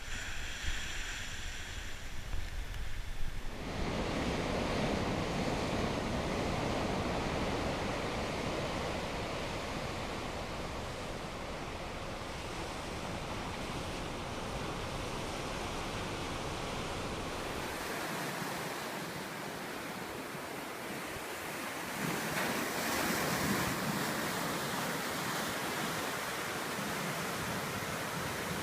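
Pacific Ocean surf: waves breaking and washing onto the shore in a continuous rushing noise, with wind on the microphone. The sound changes abruptly a few times, about four seconds in, around eighteen seconds and again around twenty-two seconds.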